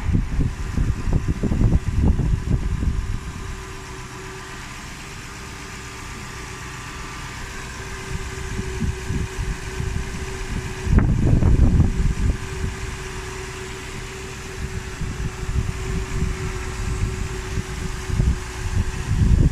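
Lexus GS430 idling with a steady hum and a faint higher whine. Rumbling gusts of wind on the microphone come near the start, again about eleven seconds in, and at the end.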